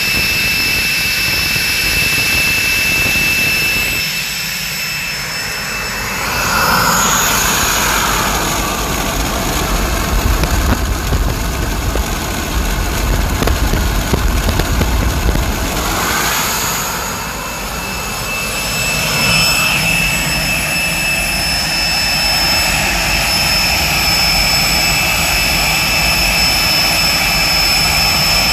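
Motorlet M701C-500 centrifugal-flow turbojet running steadily, a high turbine whine over a broad jet roar. From about six seconds in to about seventeen, the microphone passes behind the exhaust nozzle: the whine fades and deeper exhaust roar takes over, then the whine returns.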